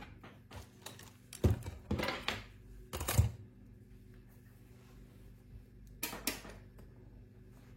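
Handling noise: a few separate clicks and knocks, two about a second in, one near three seconds, and another about six seconds in, with quiet between.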